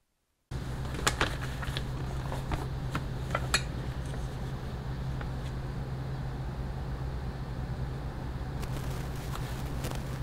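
Leather and tools being handled on a work mat: a few sharp clicks and taps in the first few seconds, then fainter ones, over a steady low hum and hiss. The sound cuts in suddenly about half a second in.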